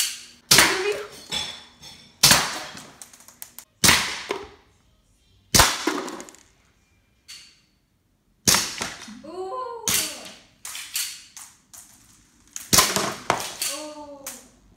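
Sig Sauer 1911 CO2 BB pistol firing single shots with its blowback slide cycling, each a sharp crack. There are about eight shots, spaced from half a second to three seconds apart.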